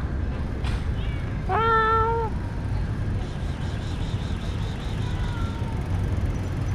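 Steady street traffic rumble heard while cycling. About a second and a half in, one short pitched tone sounds for under a second, flat in pitch apart from a brief rise at its start.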